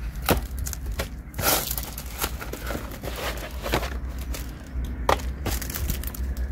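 A parcel being opened by hand: packaging crinkling and tearing, with scattered clicks and knocks of handling.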